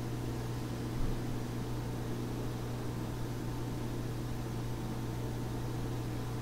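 Steady low hum with a constant hiss: room tone of a quiet sanctuary, with one faint soft bump about a second in.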